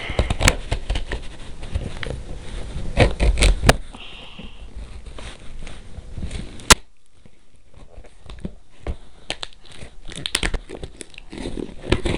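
Cardboard box and packing material being handled and opened: tearing, crinkling and scraping with many knocks and clicks, busiest in the first four seconds, with one sharp click about halfway through.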